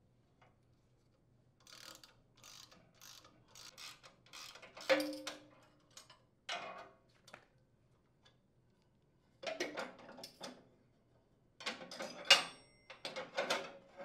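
A ratchet wrench is worked in short strokes, giving a run of clicks about two a second. It is followed by several metal clanks and clinks, some with a brief ringing, as the loosened bolts and the steel shredder blade are handled and pulled off the chipper shredder's impeller. The loudest clink comes about twelve seconds in.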